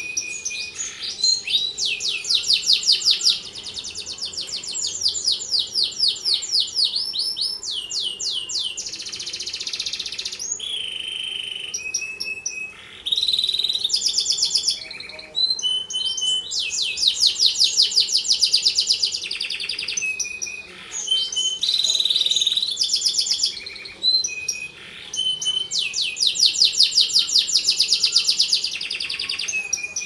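Domestic canary singing a long, continuous song of rapid trills and rolls, switching from one trilled phrase to the next every second or two, with short whistled notes between phrases.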